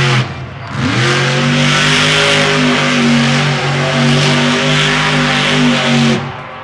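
Monster truck engine revving hard. It eases off briefly at the start, climbs quickly just under a second in and is held at high revs for about five seconds, then drops away near the end.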